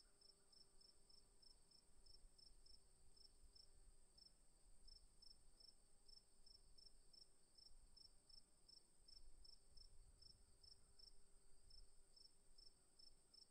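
Near silence with a faint cricket chirping steadily, about three to four high chirps a second.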